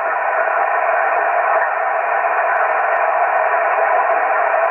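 Steady hiss of band noise from an amateur radio transceiver's speaker, heard in the gap between contacts when no station is transmitting. The sound is cut off above and below to the narrow voice band of a radio receiver.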